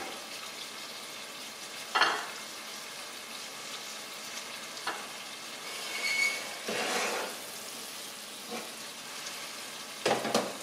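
Shrimp sizzling in a garlic, olive oil and paprika sauce in a frying pan, with a spoon knocking and scraping against the pan several times as it is stirred. The loudest knocks come about two seconds in and near the end.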